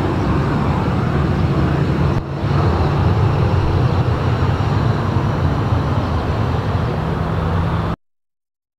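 Boeing 737-800's CFM56-7B turbofan engines running at high thrust as the airliner rolls down the runway on its takeoff run: loud, steady jet noise with a low drone. It dips briefly about two seconds in and cuts off abruptly near the end.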